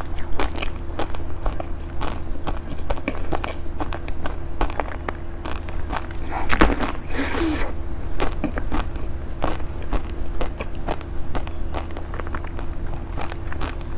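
Close-miked eating sounds: many small wet clicks and lip smacks as a small white ball of food is nibbled and sucked at the lips, with one louder, longer bite about six and a half seconds in.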